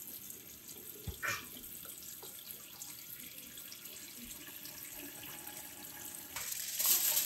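Thin stream of tap water running into a stainless steel mesh strainer of short-necked clams in a bowl in the sink, rinsing them before purging them of sand. There is a light knock about a second in, and the water grows louder near the end.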